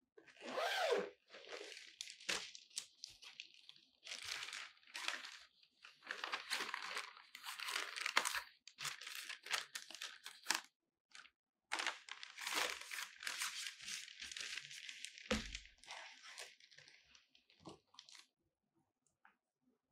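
A padded fabric carrying bag being unzipped and its flap folded back: repeated short rasps of the zipper and rustling, crinkling fabric, with a short pause about halfway and a soft low knock near the end.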